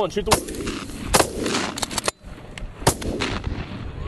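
Several hunters' shotguns firing in quick, uneven succession: about six shots, with three fired close together around the middle.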